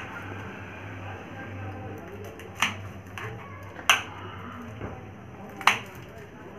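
Knife chopping green chillies on a plastic cutting board: four sharp knocks of the blade on the board, a second or two apart, over a faint background of voices.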